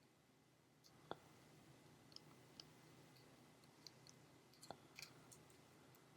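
Near silence with a few faint, short clicks and ticks from small knife parts being handled during reassembly. The two most distinct clicks come about a second in and just before five seconds.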